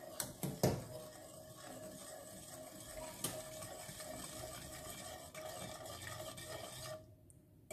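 Wire whisk stirring warm milk and melted butter in a metal saucepan, its wires scraping against the pan with a few light clinks. The stirring stops about seven seconds in.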